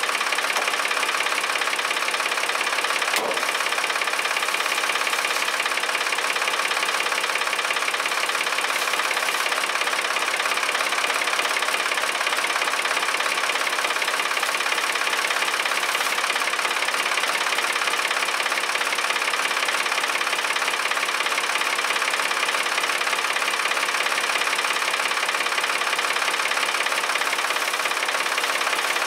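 Ford 3910 tractor's three-cylinder engine idling steadily, running after sitting unstarted for about a month. A single brief tick about three seconds in.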